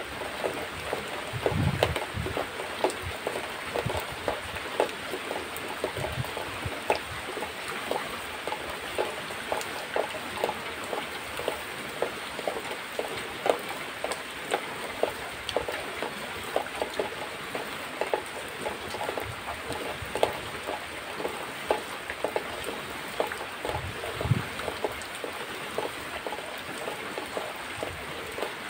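Hand-milking a cow: milk squirting from the teats into a plastic bucket, about two spurts a second over a steady hiss.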